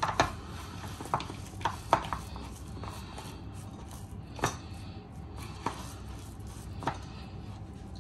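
A spoon knocking and clinking against a bowl: about eight light, scattered taps over a low background hum.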